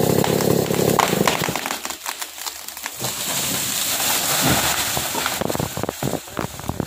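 Chainsaw engine still running low for the first second or so, then a felled mindri tree cracking and crashing down: a quick run of sharp snaps and cracks as the trunk gives way and the branches break through the leaves on hitting the ground.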